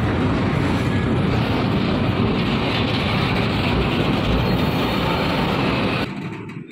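Diesel locomotive passing close by, its engine running with a loud, steady rumble along with the wheels on the rails. About six seconds in the sound drops abruptly to something much quieter.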